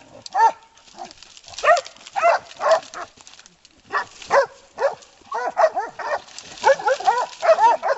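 Hog-hunting dog barking repeatedly at a wounded wild boar it is holding at bay: short, sharp barks at uneven intervals, coming faster in the last few seconds.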